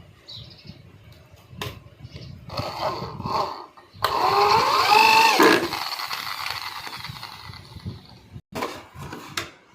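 Electric power tool running in a short burst about four seconds in, its pitch rising and then falling as it winds down, with scattered knocks before and after.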